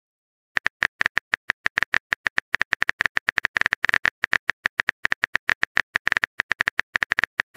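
Phone keyboard tap sounds from a texting app: a fast, uneven run of short clicks, about ten a second, as a message is typed out, starting about half a second in.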